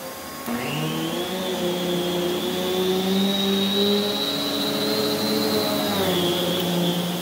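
Prolux X8 Elite backpack vacuum with its EBK360 power nozzle running on carpet. Its motor hum and high whine climb to full speed within the first second, then hold steady, with a brief sag in pitch near six seconds.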